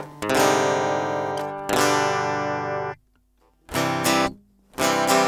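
End-card music: a guitar strumming a handful of chords, each one ringing on before the next, with a short break about three seconds in.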